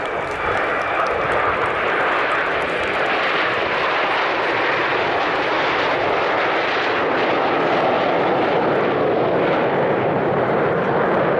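Jet aircraft flying over in formation: a steady jet engine noise, a little louder after the first couple of seconds.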